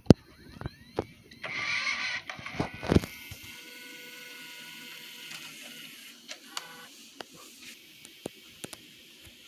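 Plastic clicks and knocks of a VHS-C cassette being handled and loaded into a JVC GR-SXM250U camcorder, with a short mechanical whir and clatter about one and a half seconds in. From about three seconds in there is only a steady hiss with a few faint ticks.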